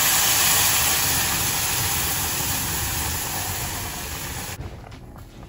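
Boiling custard milk poured into a hot kadai of ghee-roasted vermicelli, sizzling and hissing as it hits the pan. The sizzle slowly dies down as the pan fills, then cuts off suddenly about four and a half seconds in.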